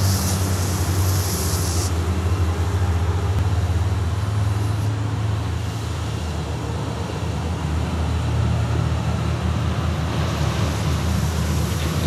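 Smoke firework's fuse sizzling for about the first two seconds, then a steady rushing hiss as the coloured smoke pours from the tube, over a constant low rumble.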